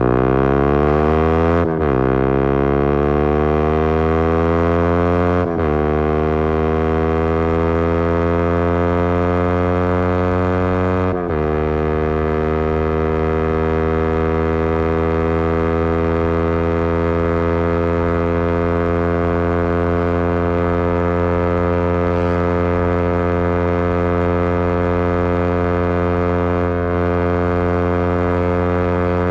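Yamaha MT15's single-cylinder engine through a Leo Vince exhaust with a custom bend pipe, accelerating through the gears: the note rises and drops sharply at upshifts about 2, 5½ and 11 seconds in, then holds a steady pitch at cruising speed.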